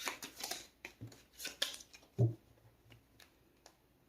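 A deck of tarot cards being shuffled, a quick run of crisp card flicks that stops less than a second in, followed by a few separate card snaps and taps as the deck is handled.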